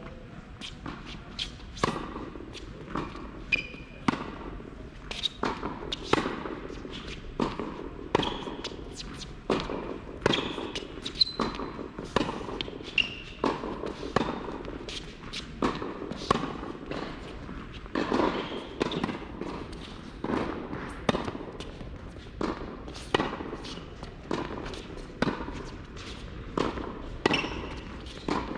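Tennis balls struck by rackets and bouncing on an indoor hard court during a groundstroke rally: a steady run of sharp pops, one every half second to a second or so, echoing in a large hall, with a few short high squeaks now and then.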